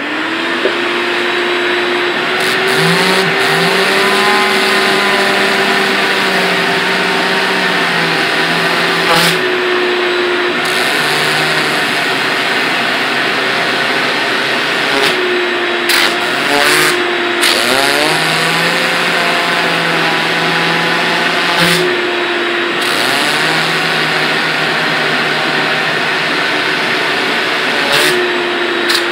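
Vacuum cleaner running steadily on a carpet floor mat, its motor pitch dipping and recovering several times as the nozzle is worked over the pile, with a few sharp knocks of the nozzle.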